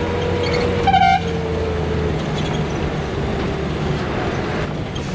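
Bus engine running steadily under the noise of the ride, with a short, loud vehicle horn blast about a second in; the engine's note sinks slightly after the horn.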